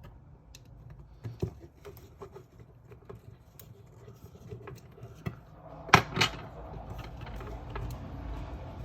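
Small clicks and taps from handling a Mavic Mini drone's small parts and a tool during a propeller swap. Two sharper clicks come about six seconds in.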